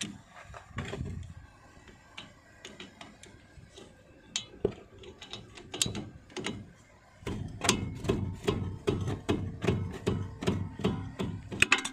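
Ratchet wrench clicking on a car's front brake caliper bolt: a few scattered clicks at first, then a fast run of clicks as the handle is swung back and forth from about seven seconds in.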